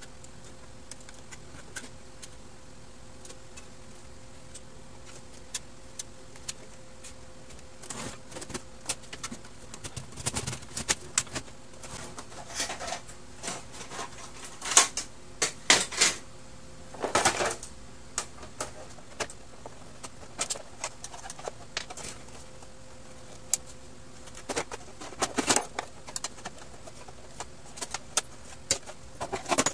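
Plastic parts and covers of a partly disassembled laser printer being handled: scattered clicks and clatters, busiest and loudest around the middle, over a faint steady hum.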